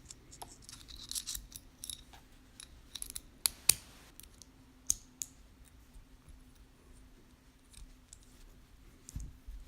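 Small clicks and clinks of a metal fidget spinner being handled, a scattering of light taps with a couple of sharper clicks about three and a half seconds in.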